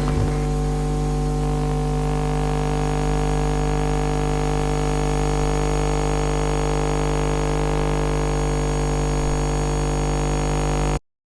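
A steady electronic drone: a low hum under a stack of held tones and a faint hiss, unchanging in level, cutting off suddenly near the end.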